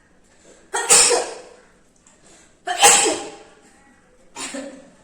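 A person sneezing three times in a row, about two seconds apart, the third sneeze weaker than the first two.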